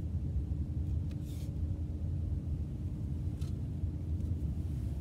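Steady low road and engine rumble inside a moving car's cabin, with a faint constant hum over it.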